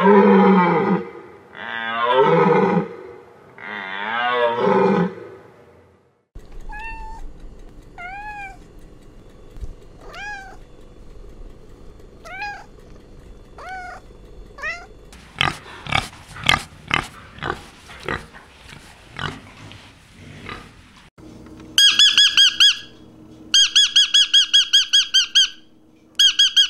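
Deer calling with three loud, drawn-out cries, followed by a cat mewing, short rise-and-fall meows about every second and a half. Then a run of sharp clicks, and near the end a lovebird chirping rapidly and high in quick bursts.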